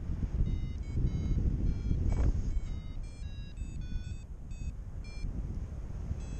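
A paragliding variometer beeping in short tones that change pitch from beep to beep, a few beeps a second, over loud wind rushing on the microphone.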